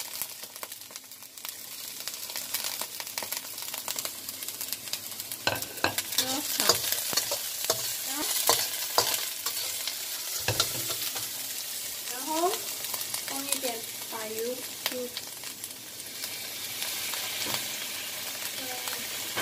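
Chopped scallions sizzling in hot oil in a wok while a metal spatula stirs and scrapes them. From about five seconds in, the spatula clatters and scrapes against the wok again and again over the steady sizzle.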